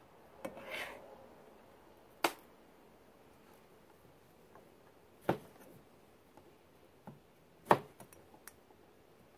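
Kitchen cleaver knocking on a plastic cutting board while bananas are trimmed and cut: about six sharp, separate knocks a second or more apart, the loudest near the end, with a brief rustle of peel near the start.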